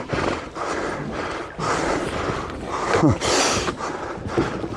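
Wind and water noise on a small open boat at sea, with a man's drawn-out falling exclamation about three seconds in.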